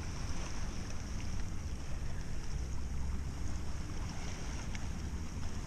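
Seashore ambience: uneven wind rumble on the microphone over the hiss of small waves washing on a pebble beach.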